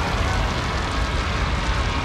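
Dark horror sound-design ambience: a steady low rumble under a dense crackling hiss.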